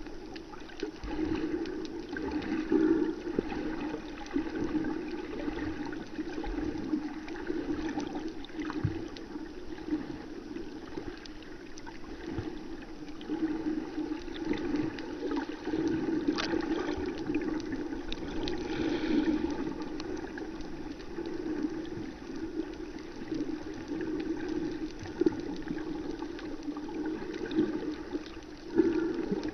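Muffled underwater water noise picked up by a camera filming beneath the surface: a continuous low rush that swells and fades every few seconds.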